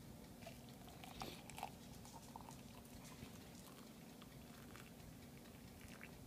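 Hot water poured from a stainless steel kettle into a ceramic mug, a faint trickling and splashing, with two small clicks a little over a second in.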